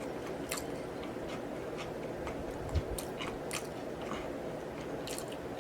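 Close-miked chewing of a barbecue rib sandwich: irregular wet smacks and small mouth clicks over a steady low room hum, with one soft low bump a little before the middle.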